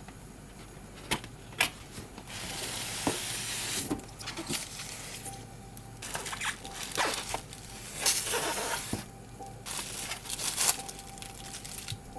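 Packaging being handled and opened: rustling, crinkling and tearing in spells of a second or two, with sharp clicks and knocks between them.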